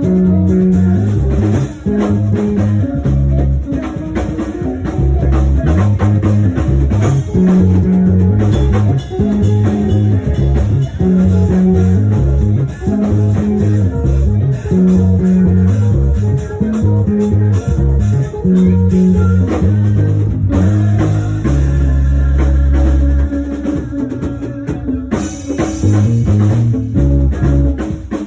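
Instrumental band music with a prominent bass line over guitar and a drum kit, without singing. A low bass note is held for a second or two a little past the middle.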